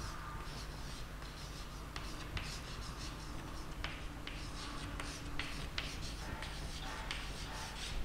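Chalk writing on a chalkboard: scratchy strokes and light taps of the chalk as a word is written, over a steady low hum.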